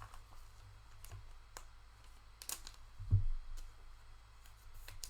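Trading cards being handled and flipped through, giving scattered light clicks and snaps, with one low thump about three seconds in.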